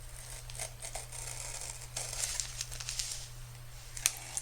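A cardboard mailing box being opened by hand: packaging tearing and crinkling in uneven spells, with a few sharp clicks near the end.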